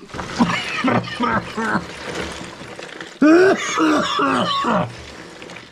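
A man coughing and clearing his throat in a series of short voiced bursts, with a louder, longer run of them about three seconds in, as he strains to bring on a sneeze.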